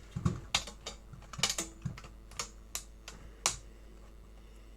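A run of sharp, irregular clicks and taps, about a dozen in three and a half seconds, as a flat plastic pry tool works the metal shield cover off an Xbox Series X main board. The clicks stop about a second before the end.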